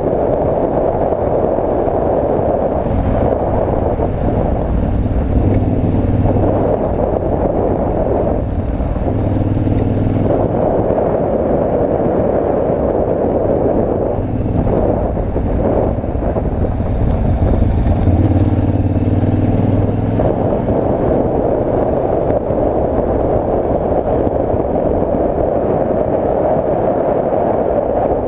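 Yamaha Ténéré 700 motorcycle's parallel-twin engine running at road speed on gravel, under heavy wind rush on the camera microphone. The engine's low note stands out for a few seconds twice, early on and again later.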